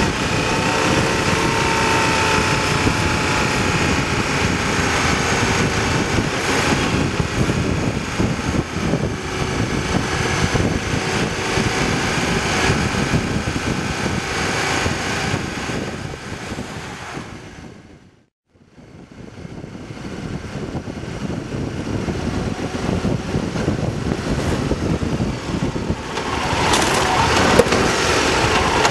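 Motorcycle running at road speed, its engine under a steady rush of road and wind noise. About two-thirds through the sound fades out to silence and fades straight back in.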